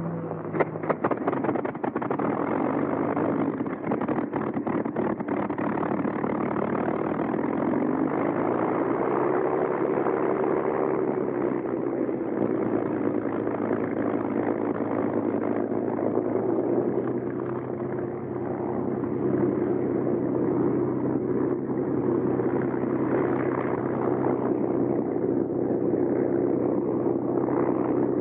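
Bell P-39 Airacobra's Allison V-1710 V-12 engine starting: a burst of sharp coughs and pops in the first second or two as it catches, then running steadily. Its pitch rises and falls once about eight to twelve seconds in, then holds steady.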